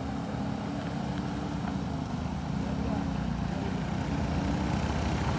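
Diesel engine of a Hino tank truck coming toward the listener, a steady low hum that grows slightly louder, mixed with a motorcycle riding past close by.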